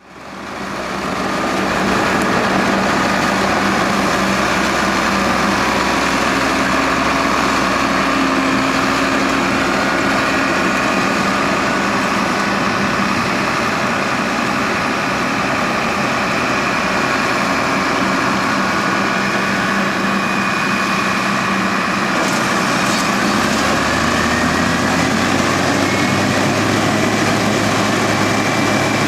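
New Holland CX880 combine harvester running steadily, a continuous machine drone with steady whining tones, fading in over the first couple of seconds; the low hum changes pitch about two-thirds of the way through.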